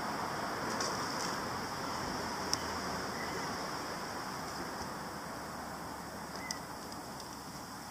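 Steady outdoor background hiss with a couple of faint bird chirps and two sharp little clicks, one a couple of seconds in and one near the end.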